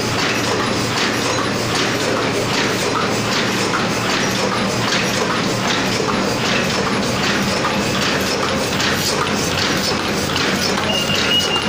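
Paper cup forming machine running: a steady hum under a regular, rhythmic mechanical clacking. Near the end a short high tone sounds.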